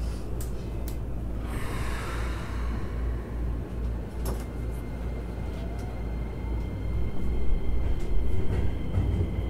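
Keikyu New 1000 series (1800 subseries) electric train heard from inside the front car, standing at the platform: a hiss of air about two seconds in, then a faint rising whine and louder running noise near the end as the train begins to pull away.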